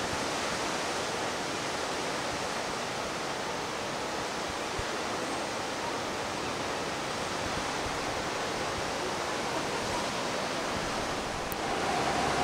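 Distant ocean surf breaking on rocks: a steady, even wash of noise. Near the end it breaks off with a click and a steady tone comes in.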